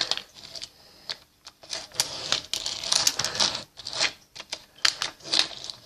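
Plastic fidget cube being worked by hand: its buttons and controls clicked over and over in quick, irregular clicks.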